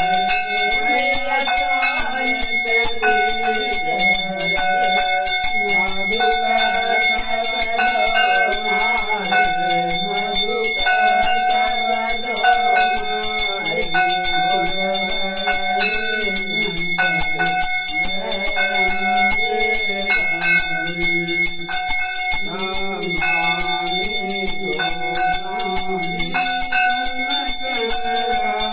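A puja bell rung without pause during an aarti, its steady ringing held through the whole stretch over devotional aarti music whose melody moves up and down.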